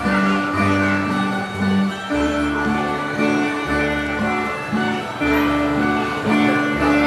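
Filipino folk dance music with plucked string instruments over a bass line that steps through short notes.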